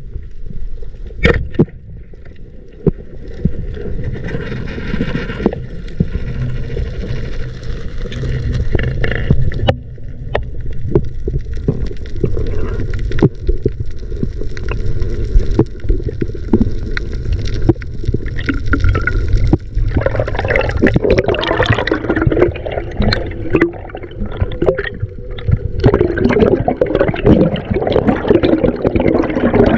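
Water gurgling and sloshing around a spearfisher's camera as he swims, with many small knocks and splashes, growing busier about two-thirds of the way in.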